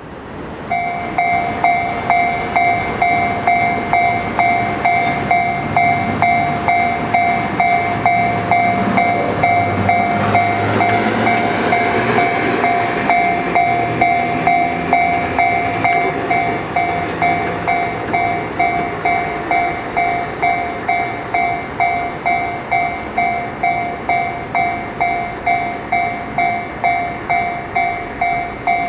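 Japanese level crossing warning bell ringing: an electronic clang of two pitches repeating about twice a second, starting about a second in and continuing without a break. Midway a low rumble swells and fades beneath it.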